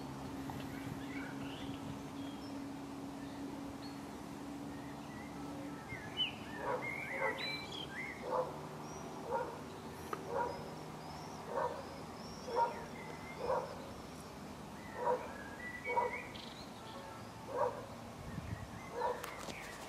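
A dog barking repeatedly, about once a second, starting some six seconds in, with small birds chirping.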